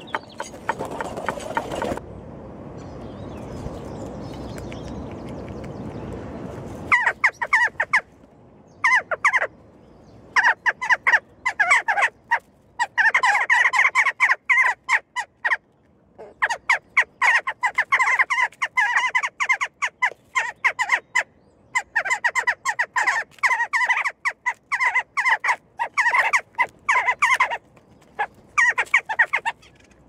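Birds' beaks pecking at a small feeding dish: bursts of rapid, ringing taps in clusters, starting about seven seconds in. Before that, a steady rushing noise.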